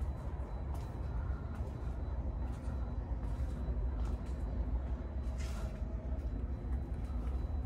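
Low, steady rumble of wind buffeting the camera microphone outdoors, with faint footsteps on gravel.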